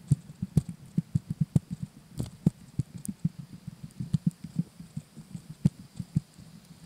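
Muffled, irregular thumps of footsteps and body knocks, about three to five a second, as the wearer clambers over boulders. They are picked up through a body-worn GoPro in its waterproof diving housing.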